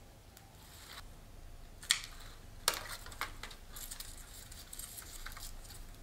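Small scissors snipping through ribbon fern (Pteris cretica) stems: sharp metallic clicks of the blades about two and three seconds in, then a run of lighter clicks and crackles as the leaves are handled and trimmed.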